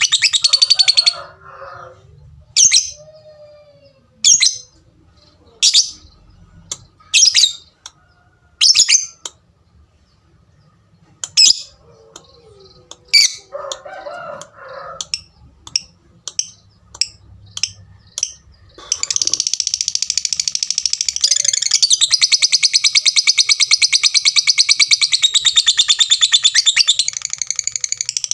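Lovebird giving single sharp, high 'tik' calls a second or two apart, coming closer together midway, then about two-thirds of the way in breaking into a long, unbroken, rapid chattering song ('ngekek').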